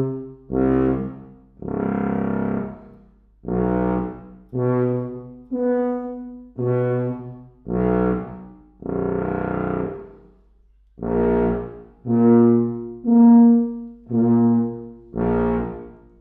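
Wessex Wyvern C tuba, a 5/4-size instrument with four pistons and one rotor, played in a string of separate sustained notes with short gaps, moving around the low register.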